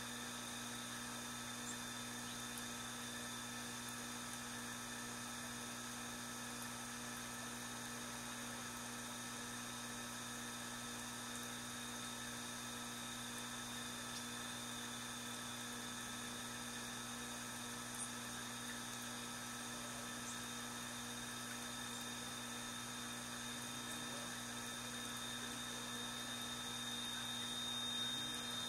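Steady electrical hum made of several constant tones over a faint hiss, unchanging throughout; a faint high whistling tone grows slightly louder near the end.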